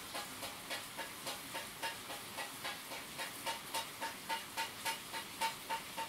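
Rapid, even ticking, about four ticks a second, over a steady hiss. From about halfway each tick carries a short, higher pitched note.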